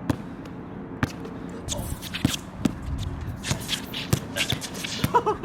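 Basketball bouncing a few times at irregular intervals on a rain-wet outdoor court, with sneakers shuffling and scuffing on the surface between bounces; a short vocal sound near the end.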